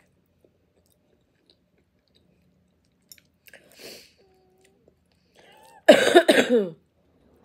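A woman coughing three quick coughs with her voice in them, about six seconds in, while eating. Before that there are only faint mouth sounds of chewing.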